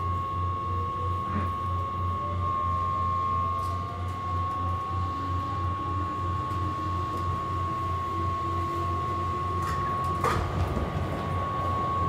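Keihan 5000 series electric train heard from inside the carriage, pulling away and accelerating: a whine rises steadily in pitch over the first half, over a constant high hum and a low pulsing drone. A sharp clunk comes about ten seconds in.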